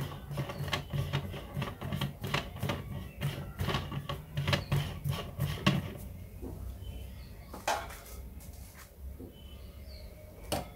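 Handling clatter as a camera is detached from a stereo microscope: rapid small clicks and knocks of plastic and metal parts for about six seconds, then two separate knocks, the last near the end.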